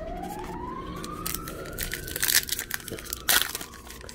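Trading card pack wrapper crinkling and tearing in a few sharp bursts, the loudest about two and three seconds in. A siren wails faintly underneath, rising for about two seconds and then falling.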